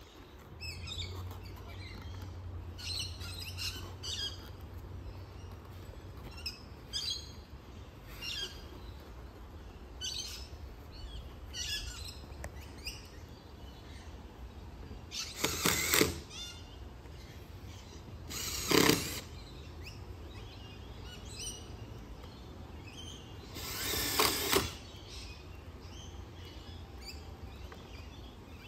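Birds chirping on and off throughout, with three short bursts of a cordless drill driving screws into the gate hinges, the first just past halfway and the last a few seconds later.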